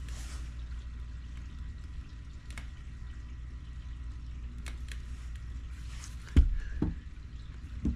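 Steady low hum with a few faint clicks, then a dull thump about six and a half seconds in and two softer ones near the end, from needle-nose pliers being handled while crimping a wire terminal.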